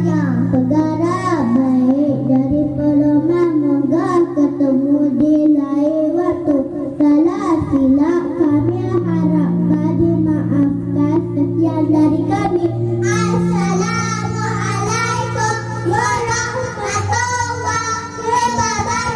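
Young girls singing a Malay pantun verse through a corded microphone, over backing music with long held low notes. About two-thirds of the way in the singing grows fuller as the second girl's voice joins.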